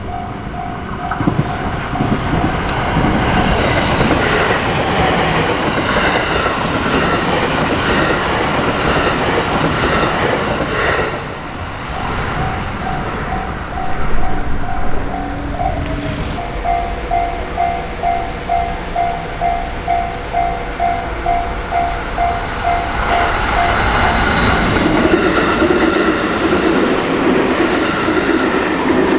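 Japanese railroad crossing's electronic warning bell ringing in a steady ding-ding at about two strokes a second, while electric trains pass with rumbling and wheel clatter, one in the first part and another near the end. A brief, louder sound stands out about halfway through.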